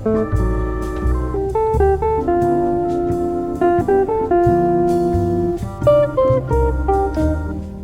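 Background music: a plucked guitar melody over a bass line and light drums, in a jazzy style.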